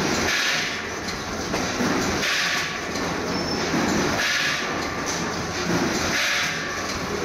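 Vertical form-fill-seal bagging machine running, a steady mechanical clatter that swells in a repeating cycle about every two seconds, one cycle per bag formed, filled and sealed.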